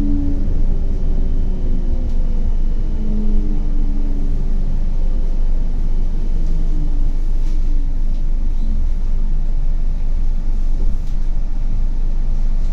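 CAF Urbos 100 low-floor tram running on its rails, heard from inside: a steady low rumble with the electric traction drive's whines gliding down in pitch as the tram slows.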